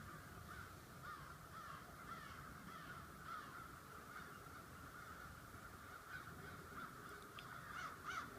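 A flock of birds calling faintly and over and over, with many short, arched calls overlapping at several a second; a few louder calls come near the end.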